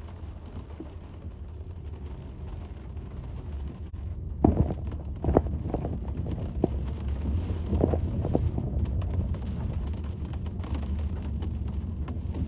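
Low, steady rumble of a car driving on a winding road, heard from inside the cabin. It grows a little louder about four seconds in, and a handful of sharp knocks come between about four and nine seconds in.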